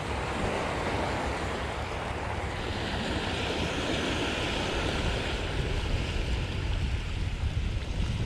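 Small waves washing up on a sandy beach, with wind buffeting the microphone; the wash of surf swells up in the middle.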